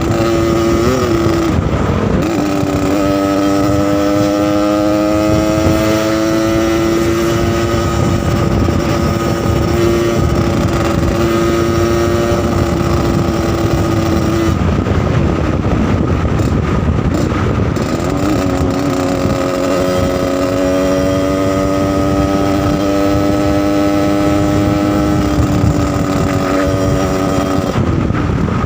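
Yamaha RX-King two-stroke single-cylinder motorcycle engine running with a rough, raspy 'ngorok' (snoring) note, its revs held up steadily twice for about ten seconds each and dropping back in between.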